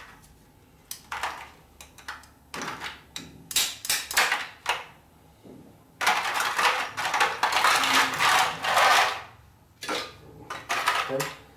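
Metal tongs clinking against ice cubes in an ice container, with a long stretch of rattling, clattering ice about six seconds in. Near the end, ice cubes clink as they drop into the blender jar.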